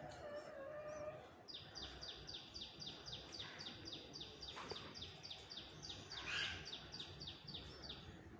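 A bird calling a long, even series of short high notes, about four a second, starting about a second and a half in. A short burst of noise about six seconds in is the loudest moment.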